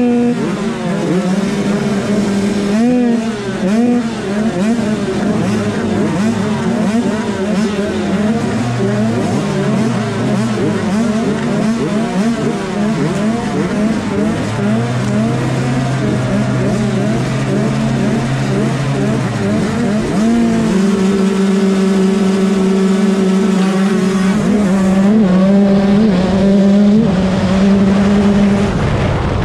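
A line of 125cc two-stroke motocross bikes, the rider's own Yamaha YZ125 among them, revving on the start line, with pitches rising and falling over one another. About two-thirds in the revs turn steady and grow louder as the field launches off the start.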